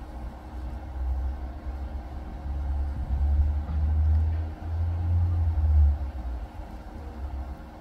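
Welding machine humming under load: a deep mains-type hum that swells about a second in, is strongest for several seconds, and eases off near the end.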